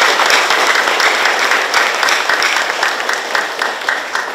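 Audience applauding, a dense round of clapping that thins out and eases off near the end.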